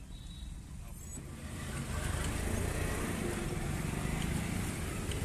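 Low motor-vehicle rumble that grows louder and noisier about one and a half seconds in.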